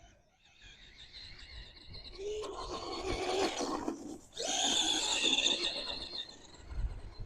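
Arrma Gorgon RC monster truck's electric motor and gears whining under throttle. The whine builds up about a second in, cuts out briefly near the middle, comes back loudest, and eases off near the end.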